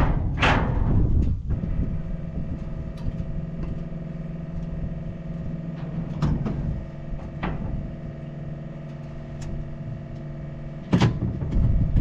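A steady mechanical hum runs throughout. Over it come sharp metallic knocks and clanks from the John Deere combine's steel access ladder: once as it is swung down, then a few times as it is climbed with the fuel hose, with a louder clank near the end.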